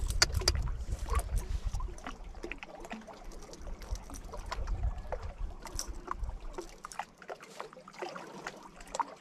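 Scattered small clicks and rattles of a metal hook and lure being worked free of a fish's mouth by hand, over a low wind rumble on the microphone that dies away after about six and a half seconds.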